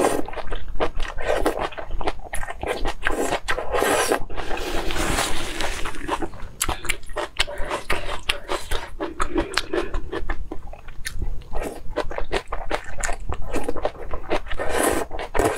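Close-miked mukbang-style eating: a steady run of crunchy bites and chewing, with a longer stretch of noise about four to six seconds in.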